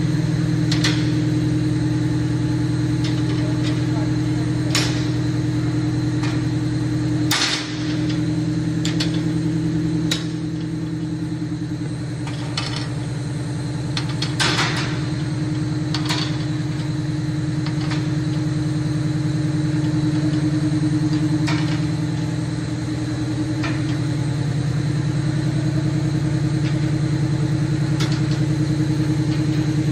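Wire-processing machinery running with a steady low hum, broken by sharp clicks and knocks at uneven intervals; the loudest knock comes about seven seconds in, where the hum briefly dips.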